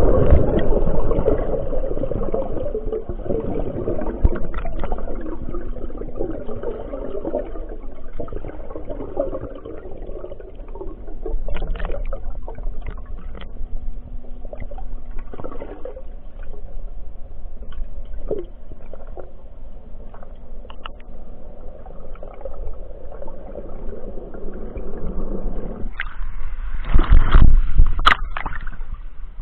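Water sloshing and bubbling, heard underwater through the camera, loudest at the start. A louder burst of splashing comes near the end as the camera breaks the surface.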